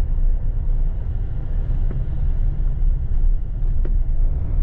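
Steady low rumble of a moving vehicle travelling along a street, its running and road noise picked up by the camera mounted on it.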